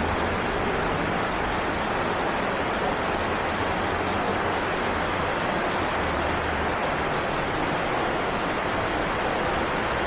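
Steady rushing of river water, an even noise that does not change, with a faint low hum coming and going underneath.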